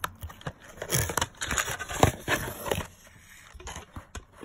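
Cardboard game box being opened by hand: the flaps scrape and rustle, with a few sharp clicks and knocks in the middle, the loudest about two seconds in, then it goes quieter.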